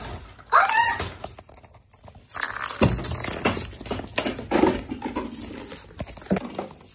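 A kitten gives one short, high meow about half a second in. From about two seconds in, a plastic rattle ball rattles and clatters in quick irregular clicks as the kitten bats it around.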